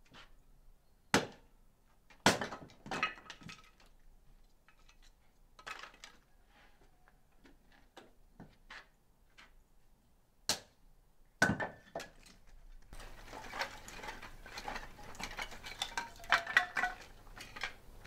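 Cooking-utensil clinks and knocks against cookware, half a dozen separate strikes, then about two-thirds of the way through a steady crackling starts and carries on.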